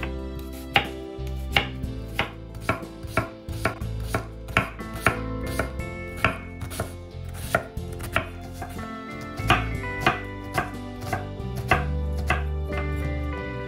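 A kitchen knife chopping food on a cutting board in steady, unhurried cuts, about two a second, with a brief pause about two-thirds of the way through.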